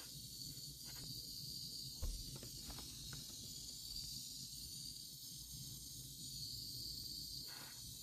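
Small handheld pencil torch burning with a faint, steady hiss. A low thump about two seconds in, followed by a few light clicks.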